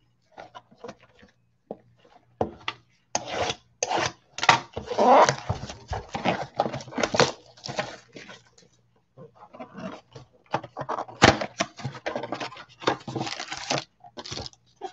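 Crinkling and tearing of plastic wrap and foil trading-card packs as a box of cards is unwrapped and its packs handled. The sound comes as a run of sharp crackles in two stretches, with a short pause about eight seconds in.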